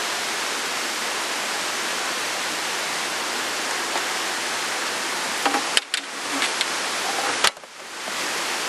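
Steady rush of flowing water, an even hiss. Past the middle come a few sharp clicks and knocks, and twice the rush is briefly muffled.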